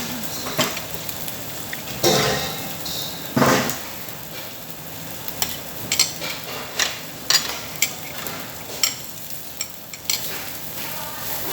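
Meat sizzling on a Korean barbecue tabletop grill, with two louder swells of sizzle early on. Repeated sharp clicks of tongs and utensils against the grill and dishes run through the middle.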